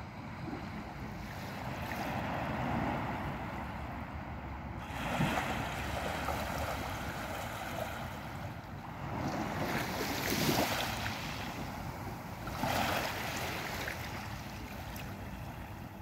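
Small waves on a calm sea lapping and washing up a sandy, pebbly beach, with three louder swells of surf hiss a few seconds apart.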